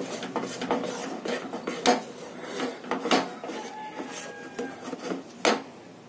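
A wooden spatula scraping and knocking against a non-stick kadai while stirring a thick cashew-and-peanut paste that has cooked down enough to pull away from the sides of the pan. It comes as irregular scrapes with a few sharper knocks.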